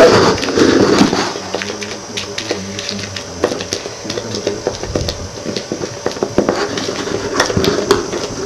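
Irregular small clicks, taps and rustles of hands handling things on the ground, louder in the first second.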